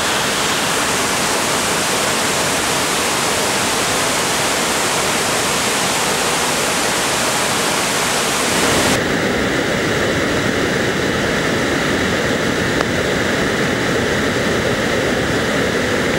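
Barron Falls in flood: floodwater pouring over the rocks in a steady, dense rush. About nine seconds in, the sound changes abruptly to a deeper, duller rush of water.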